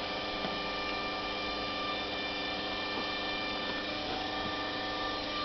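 Steady electrical hum made of several steady tones over a low, even background noise, with a faint tick about half a second in.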